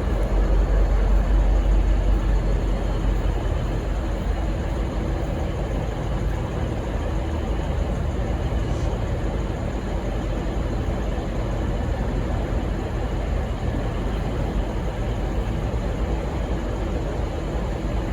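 Steady low rumble of an idling diesel train engine over general railway station background noise, slightly louder in the first few seconds. No horn sounds.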